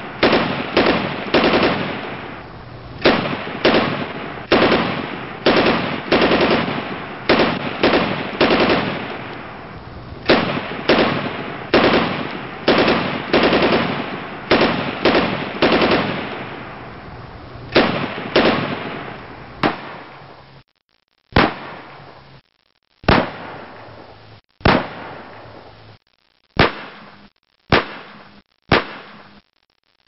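Gunshots fired one after another, about one or two a second, each with a ringing tail that overlaps the next. From about two-thirds of the way in the shots come singly, one to two seconds apart, each cut off into silence.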